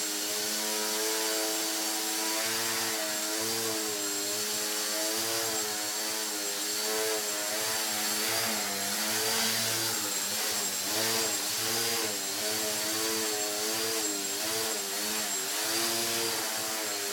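Small brushless electric motor and propeller of a foam RC plane running in a hover, the buzz wavering up and down in pitch as the throttle is constantly worked to hold the plane in place. A faint high whine rides above it.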